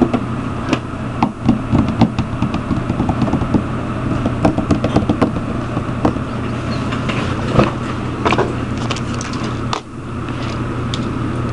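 Steady low machine hum and noise, with scattered short clicks and knocks throughout. There is a brief dip in level near the end.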